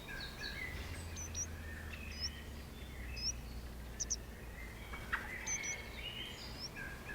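Small forest birds chirping and singing: many short whistled notes and quick paired chirps, scattered throughout, over a low steady hum.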